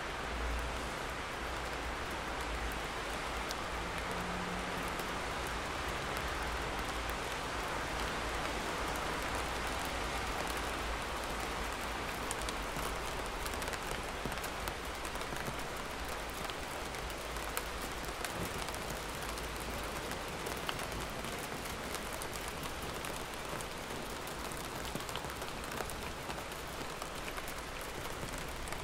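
Steady, even rainfall, with scattered ticks of single drops over a low, constant rumble.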